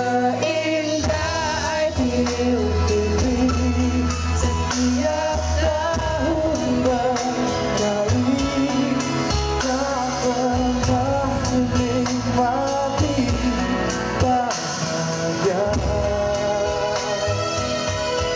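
A male singer singing live into a microphone over amplified backing music with a steady bass line, a Malay Hari Raya pop song.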